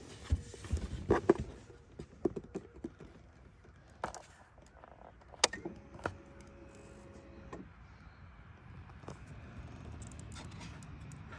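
Honda ATV ignition key turned with a sharp click, followed by a steady electric hum for about two seconds that cuts off suddenly as the ignition comes on. Before that come scattered knocks and clicks of handling around the dash.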